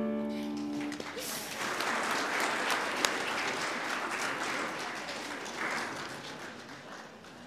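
The last held note of a congregational hymn with accompaniment ends about a second in, then the congregation applauds, the clapping thinning out and fading toward the end.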